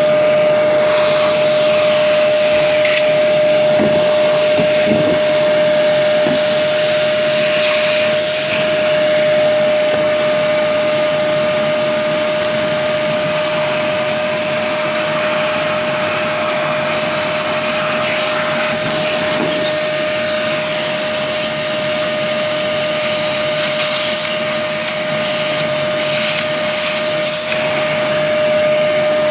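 Parkside PNTS 1500 C4 wet-and-dry workshop vacuum running steadily with a constant high whine. Dirt and small debris being sucked up make scattered clicks and rattles.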